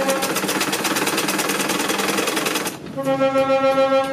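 Sewing machine stitching in a fast, even run; it stops briefly near the end, then starts again with a steadier pitched motor whine.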